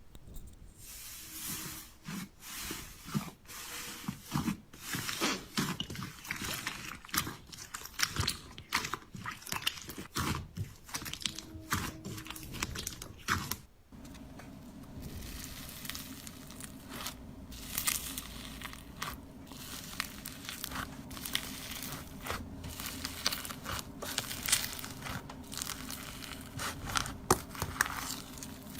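Slime being handled and squeezed, giving dense, irregular crunchy crackling and crinkling. About halfway through the sound changes abruptly to another take, with a low steady hum under the crackling.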